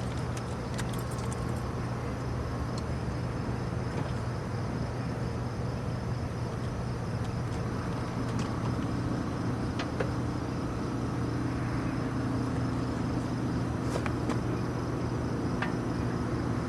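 Air compressor running steadily, pumping air into the new rear air shock. About halfway through, a second, higher hum joins the low one.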